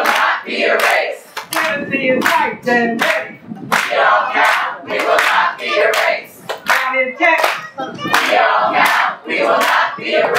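A group of people singing together and clapping hands on a steady beat, about two to three claps a second.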